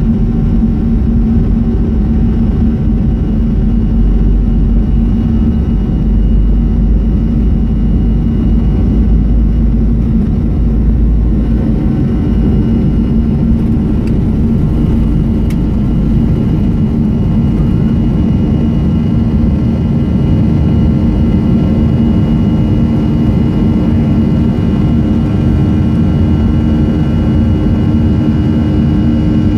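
Boeing 737-300's CFM56 turbofan engines at takeoff thrust, heard from inside the cabin as a loud, steady drone with whining tones. A deep rumble from the wheels on the runway stops about a third of the way in as the jet lifts off, and one engine tone grows stronger in the climb.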